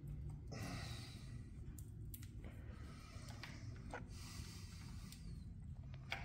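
Faint handling of motorcycle battery cables and terminals: a few small clicks and taps over a steady low hum, with a breathy exhale about half a second in.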